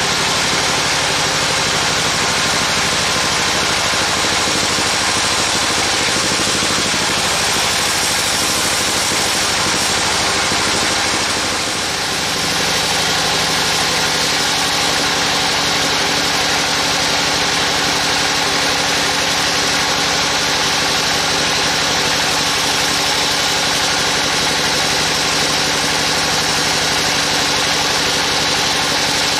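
Band sawmill running steadily, its blade cutting through a large agathis (damar) log, with a constant hum and a high hiss. About twelve seconds in the sound dips briefly, and the hum then holds at a different pitch.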